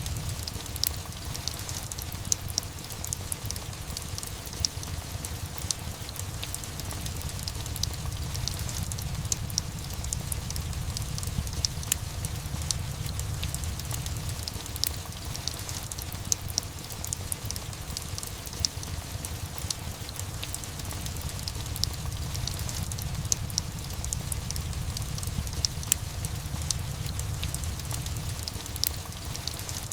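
Steady rain mixed with a crackling fireplace: a continuous low rumbling hiss under frequent sharp crackles and pops scattered throughout.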